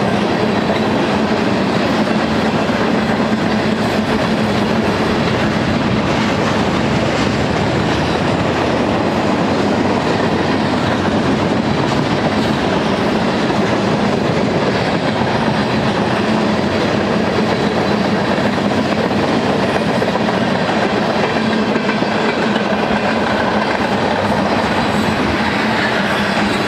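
Freight cars of a mixed freight train (tank cars, boxcars and hoppers) rolling past: a steady, loud rumble of steel wheels on the rails, with a constant low hum under it.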